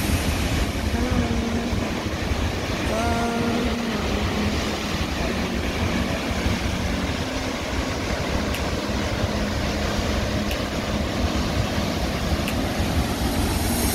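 Waterfall rushing steadily into a pool, heard close by as an even roar of falling water with a deep rumble.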